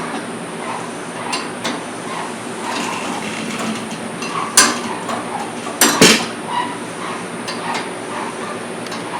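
Metal gear mechanism clicking: a faint regular ticking about twice a second, broken by a few sharp metallic clicks and knocks, the loudest pair near the middle.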